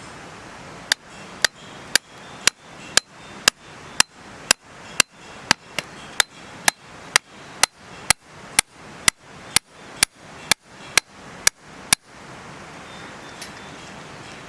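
Regular hammer blows on metal with a sharp, ringing strike, about two a second, some twenty in all, stopping about twelve seconds in. A steady hiss runs underneath.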